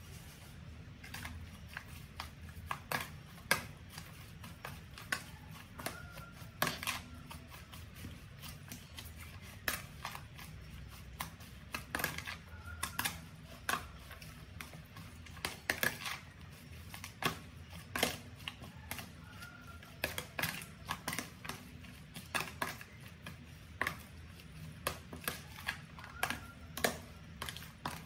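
A utensil mixing shredded vegetable salad in a plastic tub: irregular light clicks and taps against the plastic, about one or two a second.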